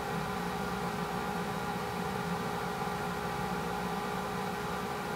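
A steady machine-like hum and whir with several held tones over a soft hiss, unchanging throughout.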